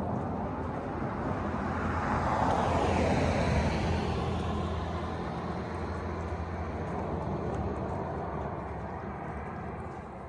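A car driving past: tyre and engine noise swells to its loudest about three seconds in, with a falling pitch as it goes by, then slowly fades away.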